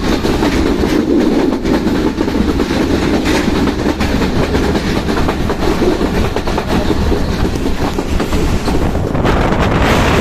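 A train passing at speed, its wheels clattering over the rail joints under a steady rumble. About nine seconds in the rumble gives way to a brighter rushing hiss.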